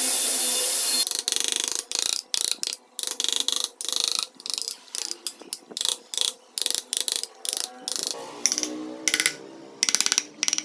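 A wood-carving tool running on wood for about a second, then stopping. It is followed by a long series of short, quick strokes on the wood, each a rapid run of clicks, several strokes a second.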